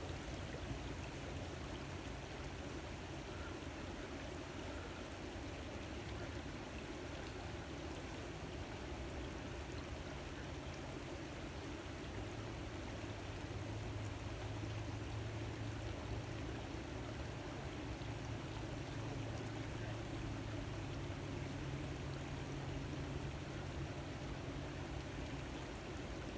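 Steady running water of a stream, an even rushing with no breaks.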